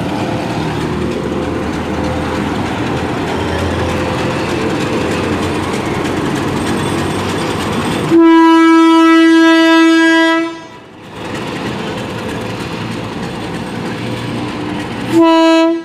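Diesel locomotive's engine running as it hauls a passenger train out of the station, then its horn sounds one long blast about eight seconds in and a short blast near the end.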